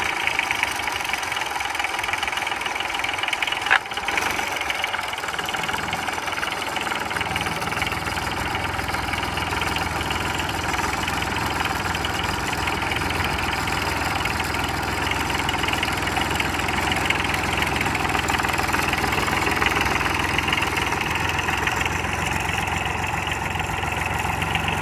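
Small diesel engine on a homemade buggy running just after starting, with a steady diesel clatter. A single sharp knock sounds about four seconds in, and a deeper low rumble joins from about seven seconds in as the buggy is driven off.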